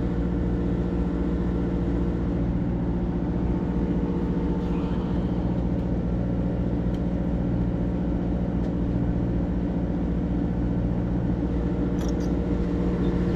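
Steady, even hum of a fishing boat's engine running without change, with a few faint clicks near the end.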